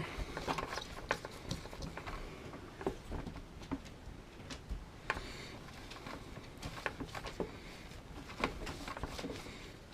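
Damp rag rubbing around the inside of a Flojet booster pump's pressure-switch housing, with soft scrubbing and small, irregular clicks and taps as the plastic parts are handled.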